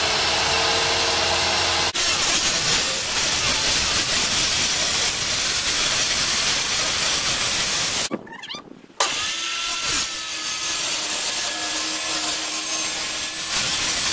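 Makita circular saw running and cutting through a sheet of 6 mm plywood, a steady loud cut that drops away for about a second around eight seconds in, then carries on.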